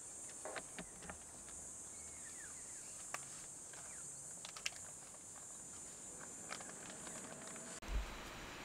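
Steady high-pitched buzzing of insects in the surroundings, with a handful of sharp, brief clicks scattered through it. Near the end the buzzing cuts off abruptly and a short low thump follows.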